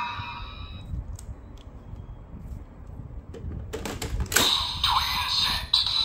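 Plastic clicks as a Command Twin Buckle is handled and slotted into a DX Desire Driver toy belt. About four and a half seconds in, the belt's electronic sound effects and standby music start from its speaker.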